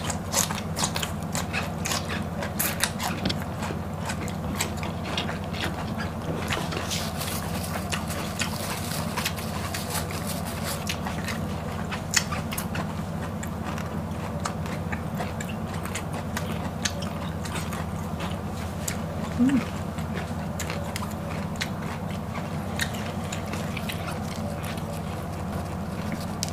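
Close-miked biting and chewing of crisp raw vegetables: a run of short wet crunches and clicks, busiest in the first few seconds and sparser after, over a steady low hum.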